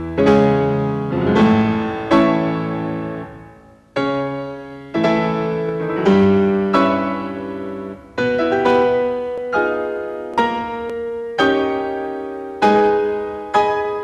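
Solo piano playing slow chords, a new chord struck about once a second and each left to ring out and fade before the next.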